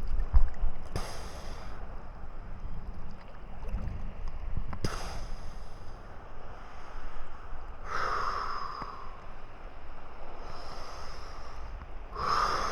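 A swimmer breathing hard in the water, a loud snorting breath or gasp every three to four seconds, over a steady low wash of water and wind.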